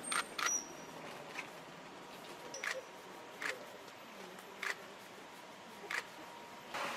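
Camera shutters clicking: about seven single sharp clicks at irregular intervals of roughly a second, the first two loudest, over a faint murmur of background voices.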